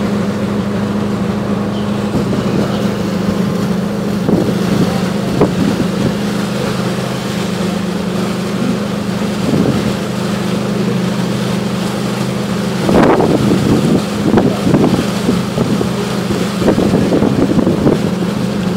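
Steady low drone of the cacilheiro ferry Seixalense's diesel engines under way. About two-thirds through, gusts of wind start buffeting the microphone.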